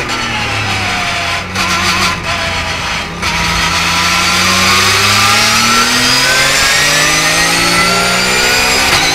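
Porsche 991.2 GT3 Cup car's 4.0-litre flat-six heard from inside the cockpit. For about three seconds it falls in pitch under braking, with brief dips in loudness. It then rises steadily under acceleration in third gear to about 7,000 rpm, with an upshift break at the end.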